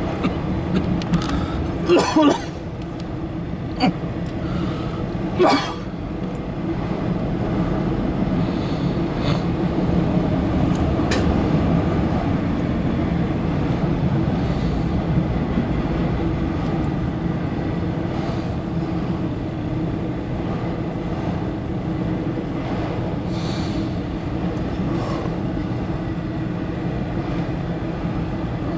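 Freight train of autorack cars rolling past with a steady rumble of wheels on rail. A few brief sharp sounds stand out about two, four and five and a half seconds in.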